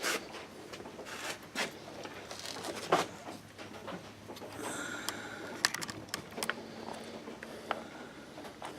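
Scattered light clicks and taps of small metal and plastic parts being handled while the throttle cable and linkage are fitted to a small two-stroke engine's carburetor, the sharpest knock about three seconds in.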